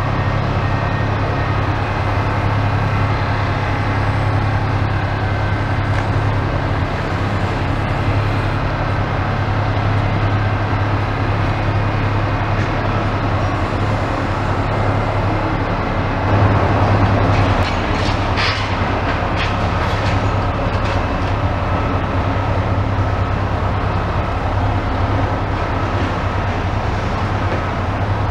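A steady low mechanical drone, with a louder spell and a few sharp clanks about two-thirds of the way through.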